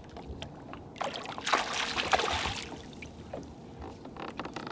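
Water splashing for under two seconds, starting about a second in: a hooked striped bass thrashing at the surface. Scattered small clicks come before and after it.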